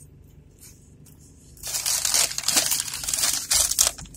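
Loud, irregular crinkling and rustling of handled paper food wrapping, starting about one and a half seconds in after a quiet start.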